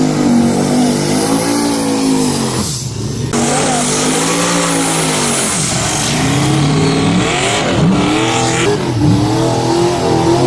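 Engines of two boosted drag-racing vehicles, a Chevy S10 pickup and a G-Body car, revving up and down repeatedly, the pitch rising and falling over and over.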